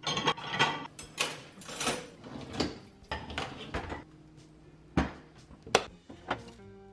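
Ceramic plates and dishes clinking and clattering as they are loaded into a dishwasher's wire rack, then the dishwasher door knocking shut about five seconds in, followed by a couple of lighter knocks.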